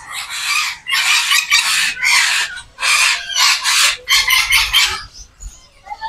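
Aviary birds giving a rapid series of loud, harsh screeching calls, about ten in five seconds, which stop shortly before the end.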